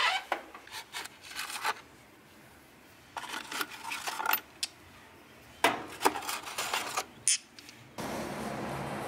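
Metal sockets and a ratchet clinking and rattling against each other as tools are picked out of a toolbox socket tray, in several short spells of handling.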